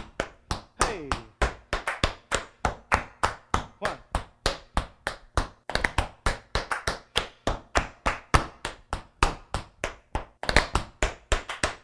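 Metal taps on tap shoes striking a wooden floor in a steady run of crisp taps, about four or five a second: tap rudiments drilled as a warm-up.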